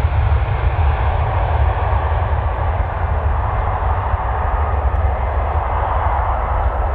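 Twin jet engines of an Airbus A319 at take-off power during the take-off roll: a steady jet noise with a deep rumble underneath, the top end thinning slightly as the aircraft moves away down the runway.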